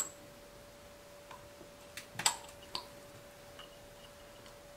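A few light clicks and taps as a greased seal and metal parts of a forklift tilt cylinder are worked by hand, the loudest a little past two seconds in. A faint steady hum runs underneath.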